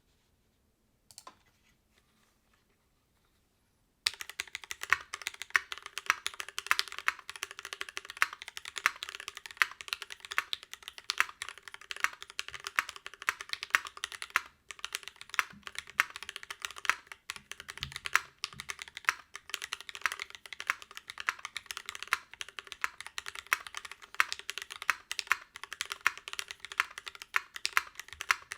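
Fast, continuous typing on a Duck Eagle v3 mechanical keyboard with lubed and filmed Gateron Ink Black v2 switches on an aluminum plate, starting about four seconds in after near silence. The keystrokes are clacky.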